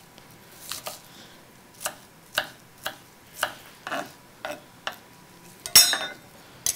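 Kitchen knife chopping onion on a wooden cutting board: short, sharp knocks about two a second, the loudest a little before the end.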